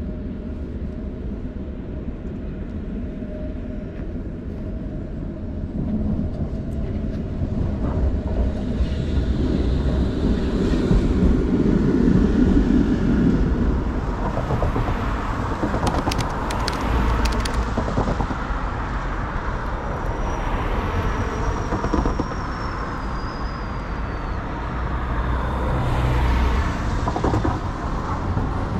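Electric tram passing close by on street track: a low rumble builds to a peak, with a few sharp clicks from the wheels on the rails. A faint high squeal then falls slowly in pitch, and a second swell of tram running noise comes near the end.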